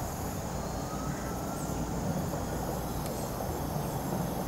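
Outdoor background: a steady low rumble with crickets chirring faintly above it.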